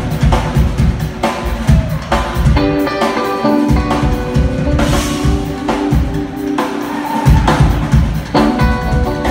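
Live jazz-fusion band playing loudly: electric guitar over a drum kit keeping a driving beat, heard in a concert hall.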